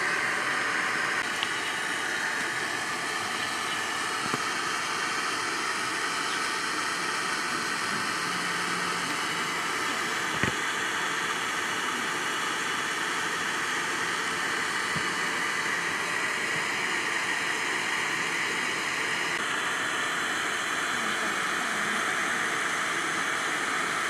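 Steady hissing background noise, with a single sharp click about ten and a half seconds in.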